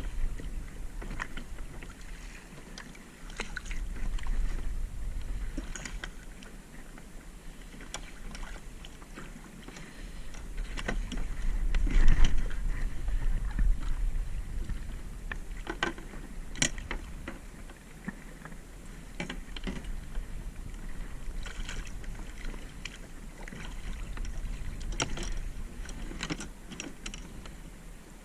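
Water sloshing and splashing against a kayak, with a low rumble that swells and fades and scattered knocks and clicks throughout.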